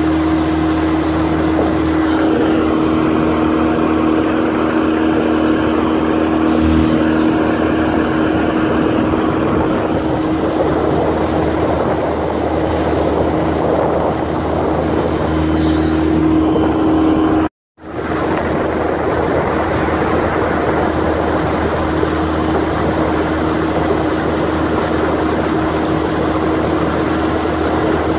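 Yamaha 9.9 hp four-stroke outboard running steadily under way, a constant engine hum over a rush of wind and water. The sound breaks off for a moment about two-thirds of the way through, then the engine is heard again.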